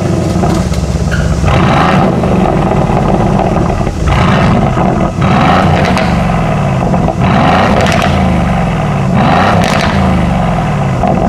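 2019 Aston Martin Vantage's twin-turbo V8 exhaust, running loud and revved several times, the pitch rising and falling with each blip of the throttle.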